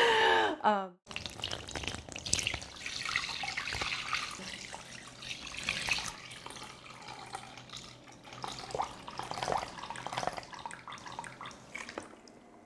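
Marinade pouring from a glass mixing bowl onto raw beef short ribs in a container, splashing and trickling unevenly, then thinning to a drizzle and drips near the end.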